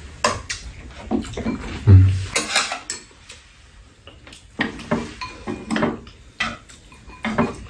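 Metal spoons and chopsticks clinking and scraping against bowls and a metal tray while two people eat, in a run of short, sharp clicks.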